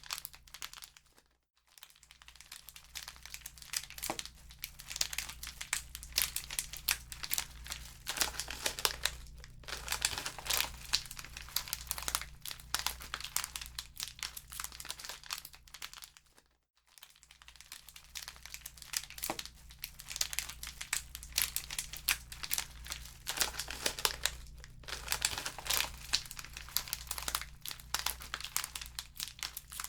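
Wood fire crackling in a fireplace: dense, irregular crackles and pops over a steady low hum, dropping out briefly twice, once early on and once a little past halfway.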